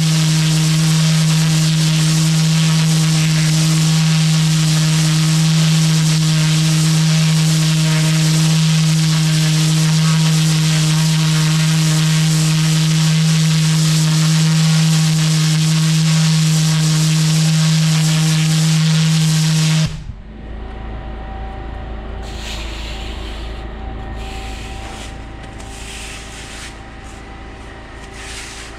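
Pressure washer lance blasting block paving: a loud, steady spray hiss over the even drone of the machine, which cuts off suddenly about twenty seconds in. After that, a push broom sweeping wet muck across the paving in a few separate strokes.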